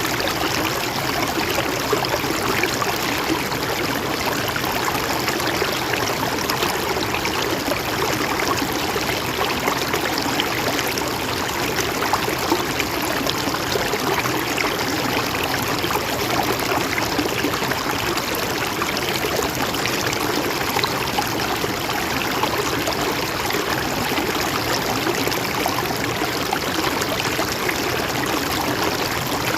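Mountain stream flowing steadily over rocks, an even rushing and trickling of water with no breaks.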